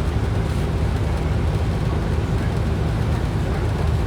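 Cabin noise inside a moving 2010 Orion VII NG city bus: a steady low drone of the engine and drivetrain mixed with road noise.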